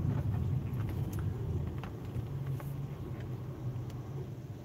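Low, steady rumble of a car driving, heard from inside the cabin, gradually getting quieter.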